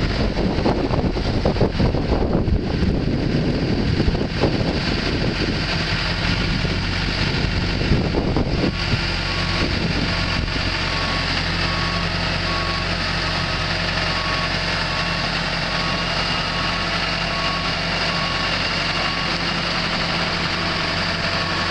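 Travel hoist's engine running steadily as it lifts and carries a sailing yacht in slings, with uneven rumbling for the first eight seconds or so. About halfway through a warning beeper starts, a short tone repeating a little over once a second.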